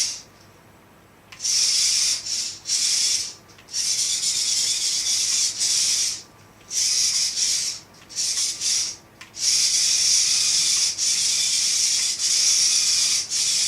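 VEX IQ robot's drive motors and gears whirring in a high, hissy run. It starts and stops repeatedly in stretches of one to four seconds with short pauses between, as the robot drives, halts and turns under its autopilot program.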